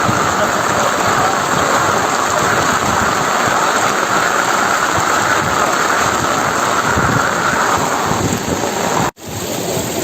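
Steady, loud rush of water from floodwater covering a highway. It drops out for an instant near the end, then carries on slightly quieter.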